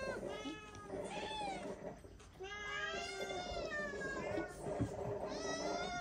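Several domestic cats meowing over one another, with long meows that rise and fall in pitch, as they beg for dry treats held out by hand. There is a short lull about two seconds in.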